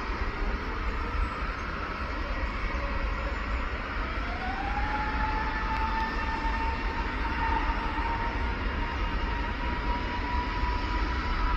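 Airbus A320 jet engines spooling up to takeoff thrust: a whine that rises in pitch over the first four seconds or so, then holds steady, over a low rumble.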